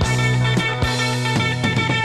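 Rock band playing an instrumental passage of the song: drums hit in a steady beat over a held low bass note, with guitar and keyboard chords.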